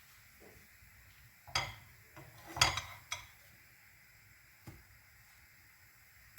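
Kitchen utensils clinking and clattering against cookware: a few sharp knocks, the loudest about two and a half seconds in, with a quieter one near the end.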